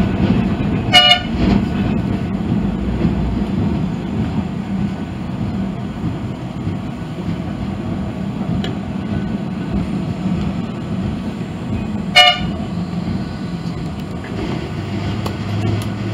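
Blackpool Millennium tram 707 running, with a steady rumble from its wheels and motors, and two short horn toots: one about a second in and another about eleven seconds later.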